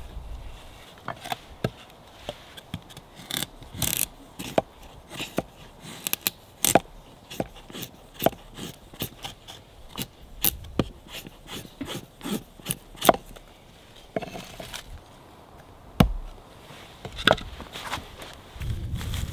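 Fixed-blade bushcraft knife shaving thin curls off a wooden stick to make a feather stick: a long run of quick, irregular scraping strokes, then a single sharp knock about three-quarters through.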